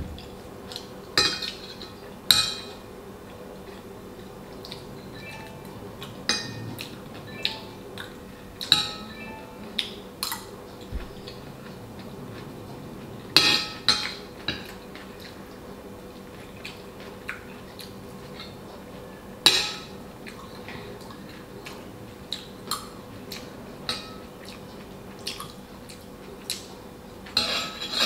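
Metal fork clinking and scraping against a ceramic dinner plate at irregular intervals while eating, with a few louder clinks scattered through.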